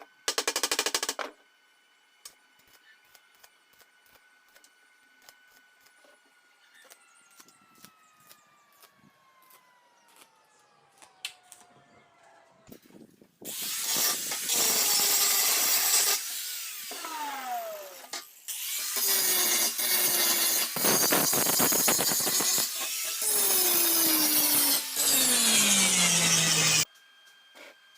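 Power tool grinding hollow steel section in several loud passes, its motor pitch sinking as it bites into the metal, after a brief burst and a slow spin-down early on.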